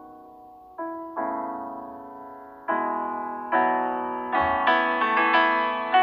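Background piano music: chords struck one after another, each ringing away. They start sparse and soft, then come faster and fuller and grow louder from about halfway through.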